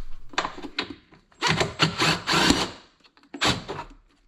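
A tool working fasteners loose in several short bursts, the longest in the middle, as the washer fluid tank is unbolted from the truck.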